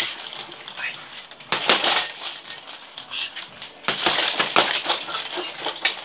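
Boxing gloves punching an RDX heavy bag in quick flurries of hits, with the bag's hanging chains jingling as it swings. There are three bursts of rapid strikes: at the very start, about a second and a half in, and from about four seconds in.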